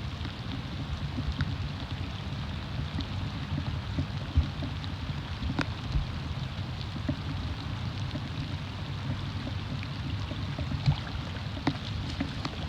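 Light rain sprinkling, with scattered sharp drop ticks over a steady low rumble of wind on the microphone.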